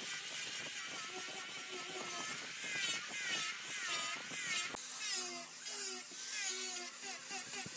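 A small high-speed electric power tool running, its whine wavering up and down in pitch, with a couple of sharp knocks.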